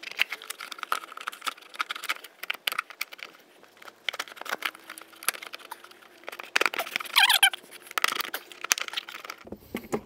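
Plastic airbox being wiggled back and forth out of a Volvo C30's engine bay by hand: a string of scrapes, knocks and rattles of hard plastic rubbing against surrounding parts. There is a short squeak about seven seconds in.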